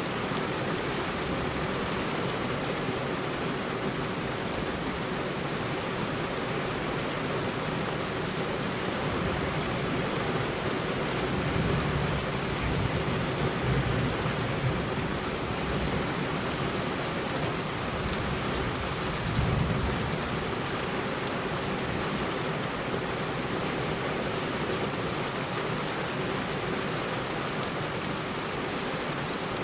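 Heavy rain falling steadily on a road, an even hiss of rain. A low rumble swells up twice, once in the middle and briefly a little later.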